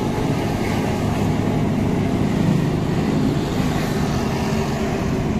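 Motorcycle being ridden along a road: steady engine hum under continuous wind and road noise.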